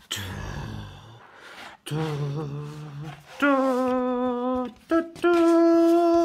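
A woman's voice sounding a rising fanfare of three held notes, each higher than the last, the third the loudest and longest. A short rustle of the cardboard mailer opens it.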